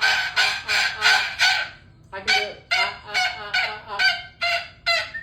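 Parrot screaming a run of short, harsh honking calls, about three a second, with a brief break about two seconds in.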